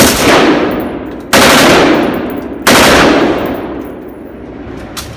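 Three short bursts of full-automatic gunfire, about a second and a half apart, each ringing out and dying away.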